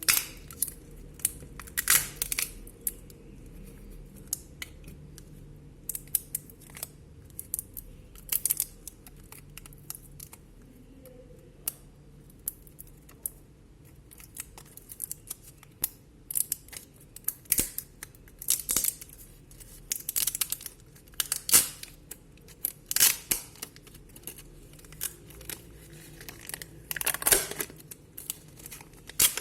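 Irregular clicks, taps and short scraping and tearing sounds as a Vivo Y12 smartphone's parts are pried, unclipped and peeled apart with small tools during disassembly.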